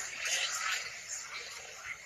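Crowd noise: many voices talking at once as a general hubbub, with no single voice standing out.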